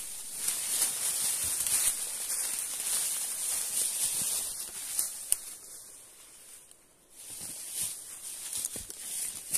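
Footsteps scuffing and crunching through dry leaves and loose rock on a steep slope, with rustling of brush, a few small knocks, and a short lull about seven seconds in.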